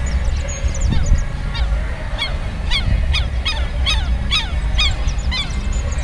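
A bird calling over and over in sharp notes that drop in pitch, about two a second, starting about a second and a half in and stopping near the end, over a steady low rumble of wind on the microphone.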